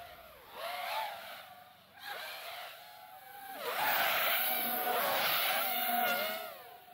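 FPV racing quadcopters flying through the gates, their motors whining with a pitch that rises and falls as the throttle changes. The whine is loudest about halfway through, as they pass close, then fades near the end.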